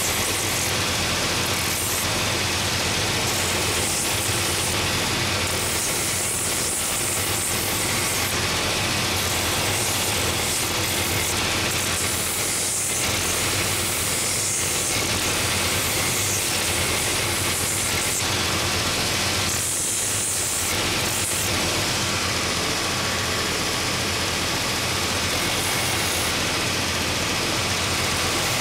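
Belt sanding machine with a 3-inch, 24-grit belt running steadily while a wooden shoe last is pressed against it: a constant motor hum under a coarse grinding hiss that brightens and eases in patches as the wood is pushed on and lifted off.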